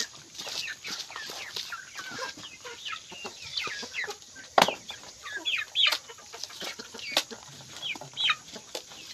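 A flock of chickens clucking busily as they crowd a trough at feeding time, many short quick calls overlapping. A sharp knock stands out about halfway through.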